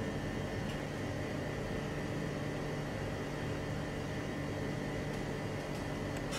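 Steady hum and hiss of kitchen machinery, with a few faint clinks as a ladle stirs a large steel cooking pot.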